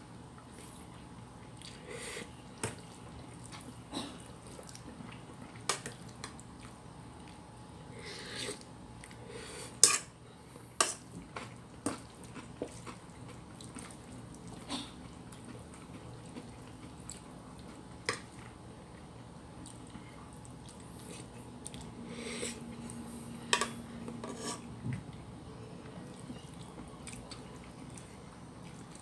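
Spoon and fork clinking against a plate and bowl while eating: scattered sharp clicks, the loudest about ten seconds in, over the steady hum of an electric fan.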